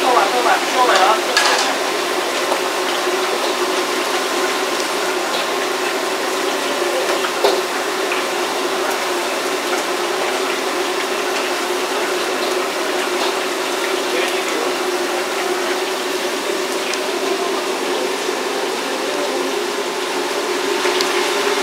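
Food sizzling in a hot steel wok over a gas flame, with a steady hum underneath. A metal ladle clanks and scrapes against the wok in the first couple of seconds, with a few lighter knocks later.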